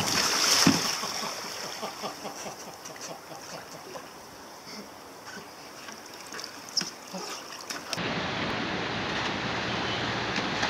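A sea kayak capsizing: a loud splash about a second in, then smaller splashes and water sloshing as the paddler struggles in the water beside the kayak. About eight seconds in the sound changes abruptly to steady wind and surf.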